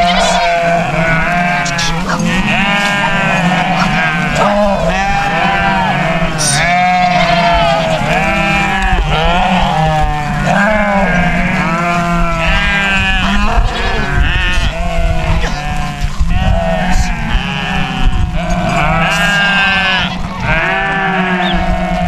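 A large flock of sheep bleating continuously, many calls overlapping at once as the flock moves across open pasture.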